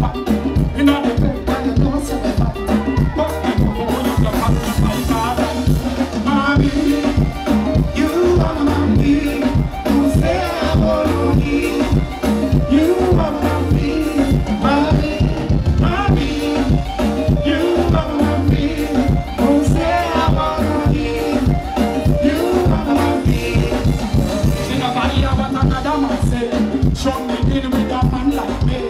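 Live band music with a male singer singing into a microphone over a steady beat.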